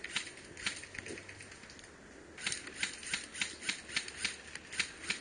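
Airsoft guns firing semi-automatic, heard as a string of sharp clicks that come only now and then at first. About halfway through they speed up to three or four shots a second, uneven in spacing.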